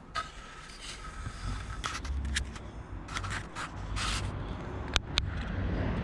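Footsteps scuffing and crunching on a debris-strewn concrete floor, a few short scrapes in the middle and two sharp clicks near the end, over a low rumble.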